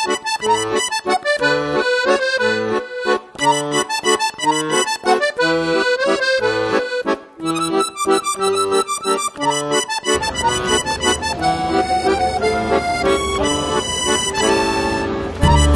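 Background music: an instrumental tune over an evenly paced bass line, with the backing filling out with a deeper low end about ten seconds in.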